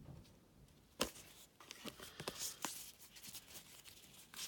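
Trading cards being handled and flipped through: a sharp tap about a second in, then a few light clicks and the brief rustle of cards sliding over one another.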